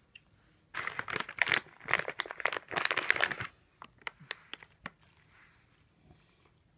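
A crinkly plastic packet being handled and crinkled for about three seconds, then a few light scattered clicks.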